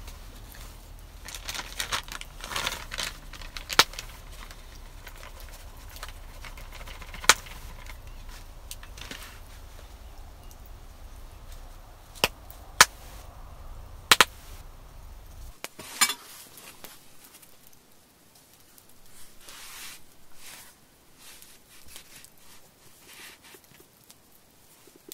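Small wood campfire crackling with several sharp, separate pops. In the second half, softer rustling of hands working flour and bread dough on a wooden stump.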